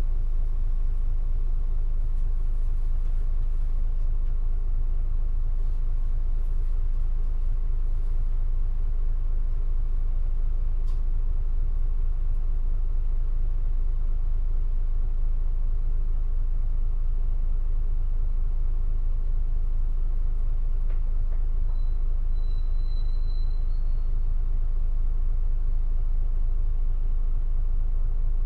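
Isuzu Erga city bus's diesel engine idling, heard from inside the cabin as a steady low rumble while the bus stands still.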